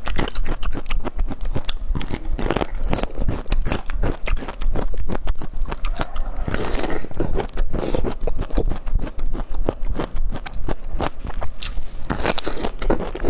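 Close-miked biting and chewing of large bamboo shoots coated in chili oil and sesame: a dense run of crisp crunches, with a few louder bites.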